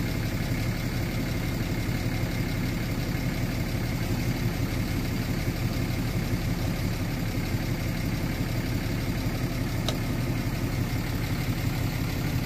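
Massey Ferguson tractor engine idling steadily.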